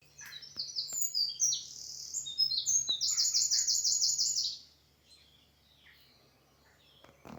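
Woodland songbird singing: a quick run of high, varied notes that ends in a fast even trill, about eight notes a second, stopping after about four and a half seconds. Faint distant chirps follow.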